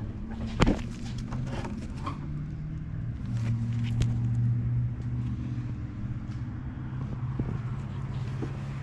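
Polaris Trail Blazer 250's two-stroke single-cylinder engine running steadily after its carburettor rebuild, getting a little louder for a couple of seconds in the middle, with a few sharp clicks early on.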